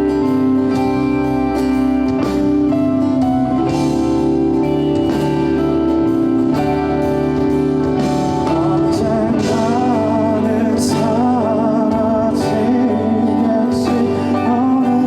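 Live band music: an instrumental passage of a pop ballad with sustained chords and a bass line, and a wavering melody line coming in about halfway through.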